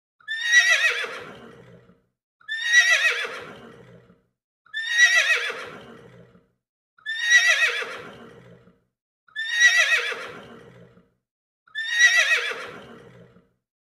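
A horse whinnying six times, the same recorded whinny looped about every two seconds. Each call starts high, falls in pitch and trails off into a lower, fading end.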